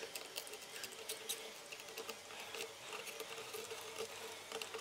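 Faint scratching and small irregular clicks of a metal pick prying glued acoustic fabric away from a Bluetooth speaker's plastic case, over a faint steady hum.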